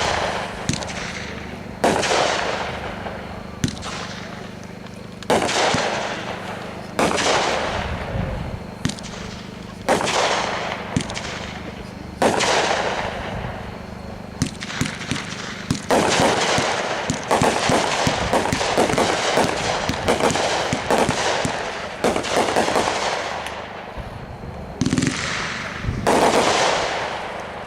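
A 30-shot consumer aerial repeater cake (Brothers Alien Uprising) firing. Single shots go off every second or two, each followed by a hissing, crackling tail. Midway comes a dense stretch of rapid crackling reports, then two more loud shots near the end.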